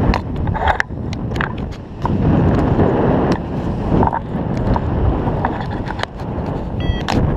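Wind rushing and buffeting over the camera microphone of a paraglider in flight, rising and falling in gusts, with scattered clicks and a short pitched beep near the end.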